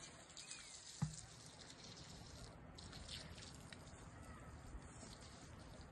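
Faint patter and trickle of water poured from a plastic bottle onto a flowerbed, with a single sharp knock about a second in.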